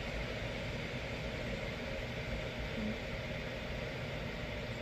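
Steady background hiss and low hum with no distinct events: room tone.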